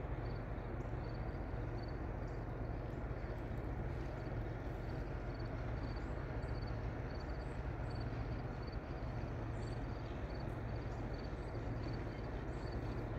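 Outdoor background: a steady low rumble with a faint high chirp repeating about every half second.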